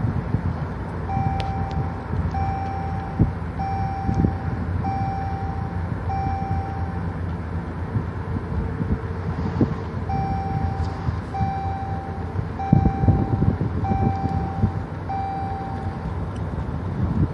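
Low road and engine rumble inside a car driving slowly, with an electronic warning beep sounding about once a second: five beeps, a pause of a few seconds, then five more.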